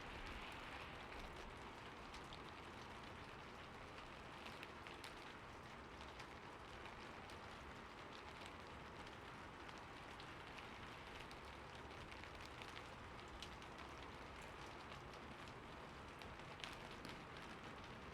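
Soft, steady rain falling, with many scattered individual drop ticks over an even hiss.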